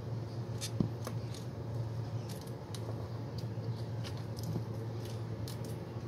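A kitten scrabbling and pouncing on a glazed tile floor at play: scattered light clicks and scratches, with one louder knock about a second in, over a steady low hum.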